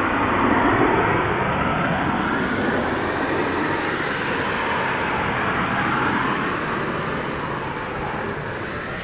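Rocket engines roaring through a launch: a steady, dense rushing rumble with a slow swishing waver in its tone. It is loudest about a second in and eases off slowly toward the end.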